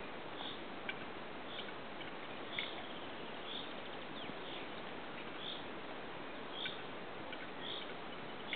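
Male western capercaillie's courtship display: a few sharp, dry clicks of its display song over a steady hiss, with a soft high note repeating about once a second.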